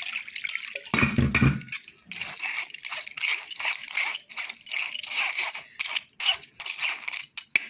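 Metal spoon scraping and pressing soaked tamarind through a wire-mesh strainer, a fast run of rasping strokes as the pulp is worked out. A low thump sounds about a second in.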